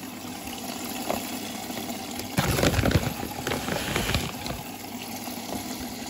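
Water running into a Bosch front-loading washing machine as it fills at the start of a wash cycle, a steady rushing. About two and a half seconds in, a louder rustling and rattling of detergent pearls and their plastic bag being handled.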